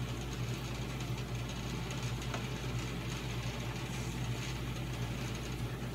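A steady low hum over an even hiss, with a faint click a little over two seconds in.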